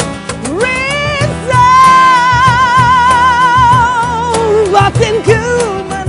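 Live acoustic band music between verses: strummed acoustic guitars under a high melody line that slides up, holds one long wavering note, then falls into shorter phrases.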